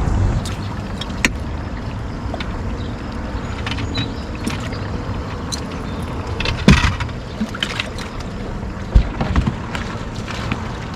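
Steady low rumble of wind and water around a fishing boat, with scattered light clicks and knocks on the boat and a sharper knock about seven seconds in and another about nine seconds in.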